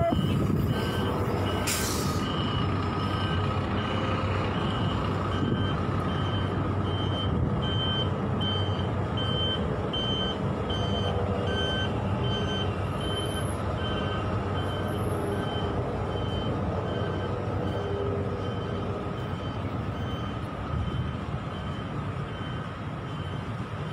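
City bus engine running close by amid street traffic, with a short hiss of air brakes about two seconds in. A high electronic beep repeats about every two-thirds of a second through most of it.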